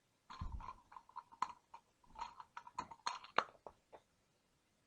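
A string of irregular light clicks and knocks from spray-gun and paint-cup parts being handled, in a small room.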